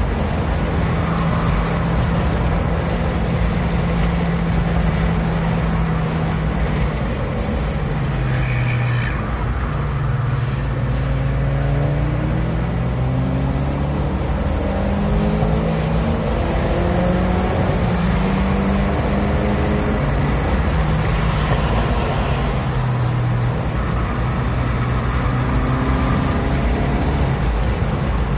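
2016 Ford Focus RS's turbocharged 2.3-litre four-cylinder engine heard from inside the cabin at track pace, its pitch rising again and again under throttle and dropping at each lift and gear change. Steady road and wind noise runs beneath it.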